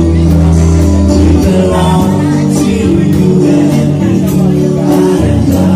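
Live band playing: a man singing over guitars, with regular hand-struck beats from a cajón.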